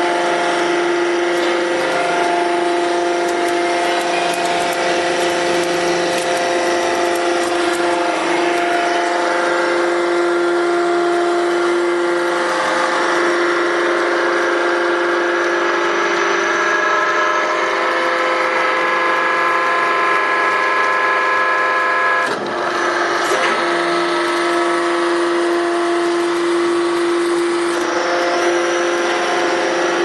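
Hydraulic power unit of a horizontal bagging baler running: the electric motor and pump give a steady whine made of several held tones, which change pitch partway through. There is a brief dip in the sound a little after two-thirds of the way through.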